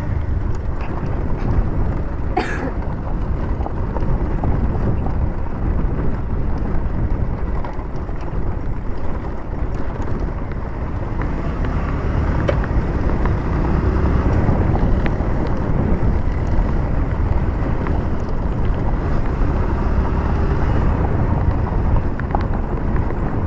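Motorcycle engine running as the bike rides over a rough gravel road, with wind buffeting the microphone.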